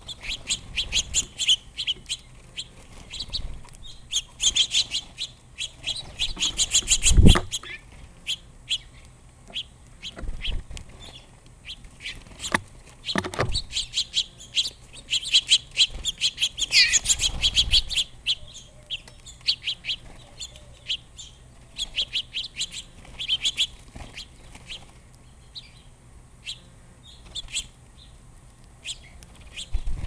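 Small songbirds at a seed feeder, sparrows and finches, chirping in quick runs of short, high chirps that thin out near the end, with a few low thumps among them.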